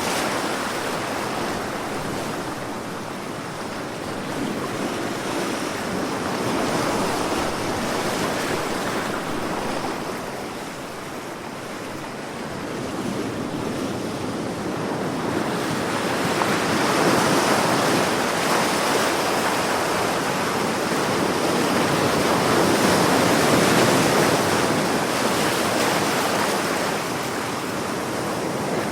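Sea waves washing ashore in a continuous surf, the wash swelling and fading slowly every several seconds.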